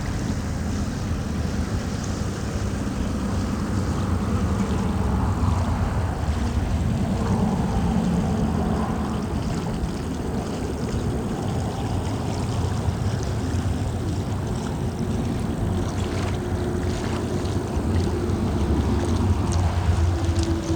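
Steady rush of flowing water, with wind rumbling on the phone's microphone.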